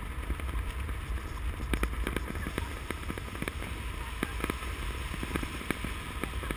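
Fireworks going off, heard as irregular sharp pops and cracks several times a second, over a steady low rumble of wind on the microphone.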